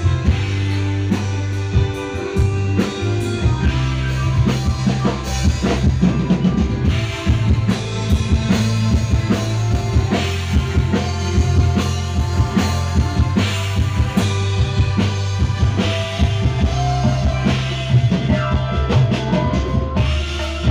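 Live band music over a PA sound system, with the drum kit and a heavy bass to the fore and a steady beat.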